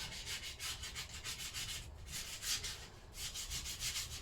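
Spongy sanding block rubbed quickly back and forth over painted metal in even strokes, several a second, with two short breaks midway, sanding paint off the sealing surface of a Lister D engine part.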